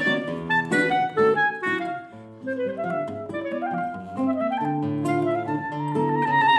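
A clarinet and a nylon-string classical guitar playing a Brazilian choro together, the clarinet carrying the melody over the guitar's accompaniment. Quick runs of notes in the first two seconds give way to longer held notes from about halfway through.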